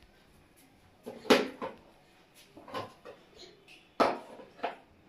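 Small plastic objects being handled and knocked against a plastic chair seat: about six irregular sharp clacks, the loudest a little over a second in and at about four seconds.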